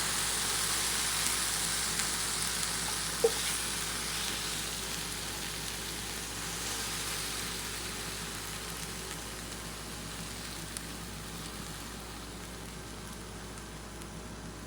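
Stir-fried chicken, mango and sweet and sour sauce sizzling in a hot pan, the sizzle slowly dying down, with one short click about three seconds in.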